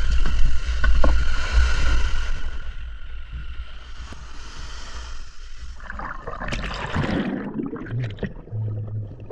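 Water lapping and splashing around a small boat, turning splashier from about six seconds in, with wind rumbling on the microphone for the first couple of seconds.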